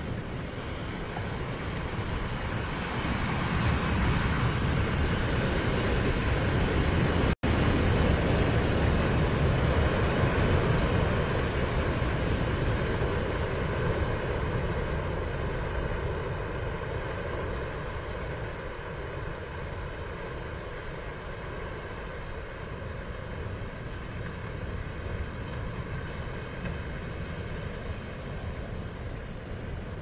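Ocean waves breaking on a sandy beach and washing up the shore as a continuous wash of noise. It builds over the first few seconds and eases off after about twelve seconds, with a split-second dropout about seven seconds in.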